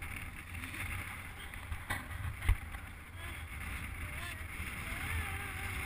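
Wind rumbling on the microphone of a camera held out of a moving car's window, over road noise, with a single dull thump about halfway through.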